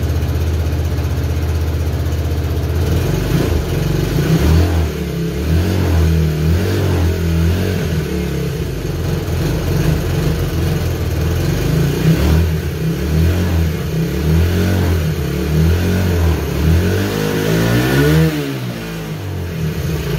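1994 Suzuki DR125's single-cylinder four-stroke engine idling evenly, then blipped up and down repeatedly with the throttle, with one rev rising and falling near the end before it settles back. It is running through its rust-holed muffler freshly patched with a flux-core weld, which sounds a lot quieter.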